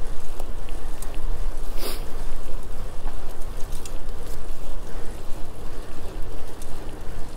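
Wind rushing over a GoPro's microphone on a moving bicycle, with a steady low rumble of riding noise and a few small clicks and rattles, the sharpest about two seconds in.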